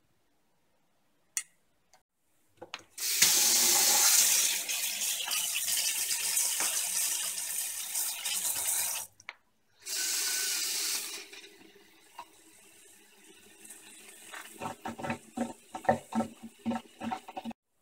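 Kitchen tap water splashing into a stainless steel sink as the glass bowl of a vacuum coffee maker is rinsed, in two runs about three seconds in and again around ten seconds. Near the end comes a quicker, uneven run of splashing and knocks as the stream falls into a glass vessel held under the tap.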